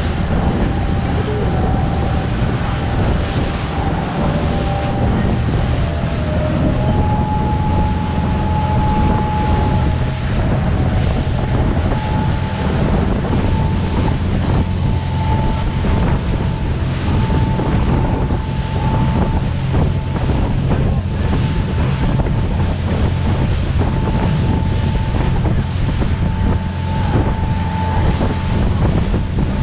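Motor boat running at speed over open sea: a steady low engine drone with a thin whine above it, water rushing and spraying along the hull, and wind buffeting the microphone.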